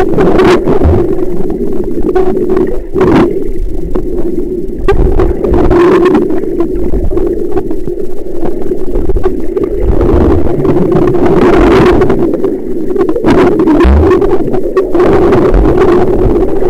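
Muffled underwater sound from a submerged camera: a steady low hum over rumbling water noise, with a few short knocks.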